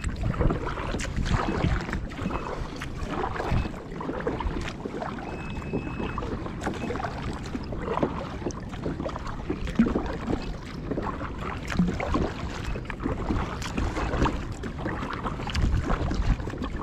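Choppy sea water lapping and splashing against a plastic fishing kayak's hull, with scattered small knocks and wind buffeting the microphone.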